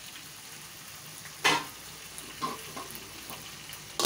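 Beef and potato curry sizzling steadily in a karahi on the stove while the masala-coated meat is braised before water goes in. A few short knocks of utensil on pan cut through it, the loudest about a second and a half in and another near the end.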